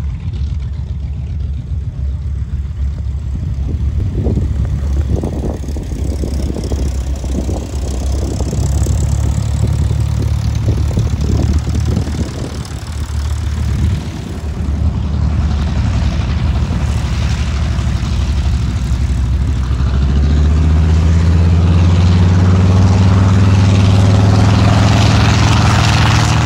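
Piston engine of a World War II-era propeller warplane taxiing, a steady low drone. About twenty seconds in it grows louder and the engine note strengthens as power comes up on the runway.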